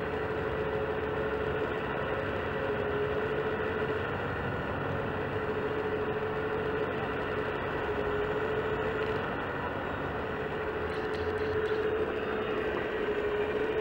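Wedico CAT 345D LME 1:14.5 scale RC hydraulic excavator running as it moves its boom and bucket, a steady whine from its hydraulic pump that wavers slightly in pitch, with a few faint clicks near the end.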